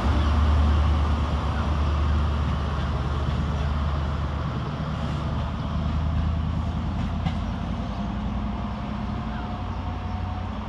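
Diesel engine of a Class 43 High Speed Train power car running under power as the train departs, a deep steady drone and rumble that slowly fades as it moves away.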